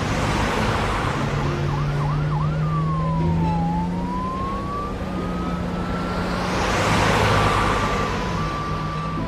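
Cartoon fire engine siren wailing as the truck drives off. It gives a few quick up-and-down wails, then a long slow sweep down and back up, then a steady held tone. Under it runs a low engine hum, with two swells of rushing noise as the truck goes past.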